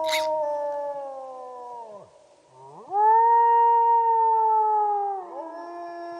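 Grey wolf howling: a long howl sliding down in pitch, then after a short break a second howl that rises and holds steady for about two seconds before falling away, with another howl carrying on lower near the end.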